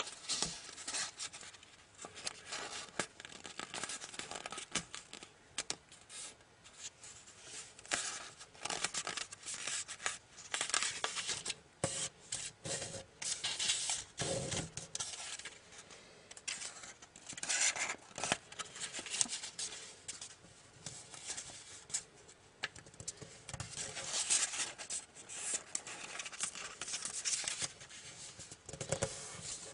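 Sheet of origami paper rustling and crinkling in the hands as it is folded and creased, in irregular bursts with short sharp crackles.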